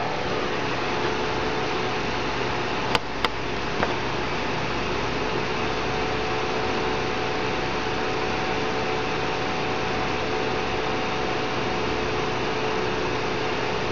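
Steady mechanical hum and hiss, an even background noise with a low hum and a faint steady whine under it; two sharp clicks come about three seconds in.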